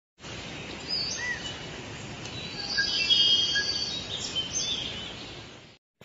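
Tropical forest ambience: a steady hiss with several birds chirping and whistling in short calls, busiest in the middle, cutting off suddenly near the end.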